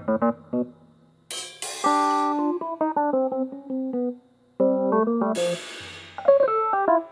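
Free-jazz improvisation on electric piano with a drum kit: choppy keyboard chords and runs, with cymbal crashes about one and a half seconds in and again about five and a half seconds in.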